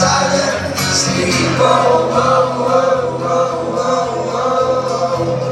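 Live band playing with several voices singing together in long, held notes over a steady bass line, recorded from the audience.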